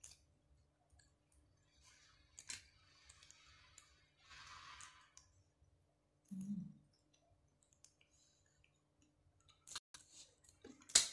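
Quiet hand-eating sounds: scattered small clicks of fingers and mouth, a soft rustling crunch about four seconds in as crispy fried fish is picked and eaten, and a brief low 'mm' a couple of seconds later.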